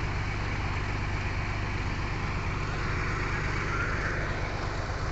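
A boat's engine running steadily at an even speed with a constant low drone.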